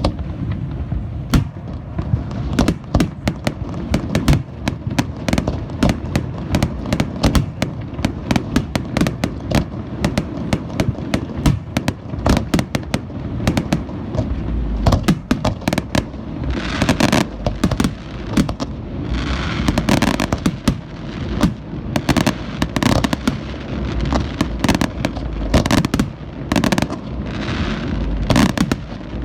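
Aerial fireworks display: a dense, rapid barrage of shell bursts and booms, with stretches of crackling after about seventeen seconds and again near the end.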